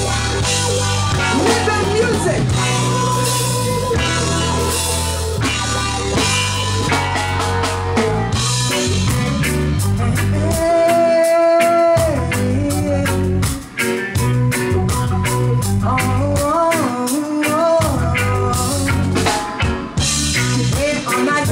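Live reggae band playing, with drum kit and heavy bass, and a woman's voice singing over it.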